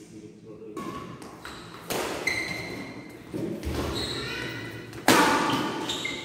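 Badminton rally: racket strikes on the shuttlecock every second or two, sharp and ringing in a large hall.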